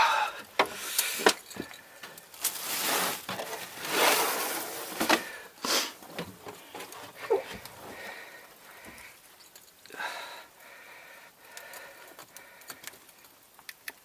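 Scattered knocks and clunks on a small fishing boat's carpeted aluminium deck as a freshly landed halibut and gear are handled, with a few louder rushing noises about 2.5 and 4 seconds in.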